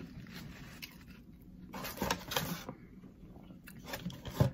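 A person chewing crinkle-cut fries close to the microphone, with a few louder bursts of chewing about two seconds in and a sharper one near the end.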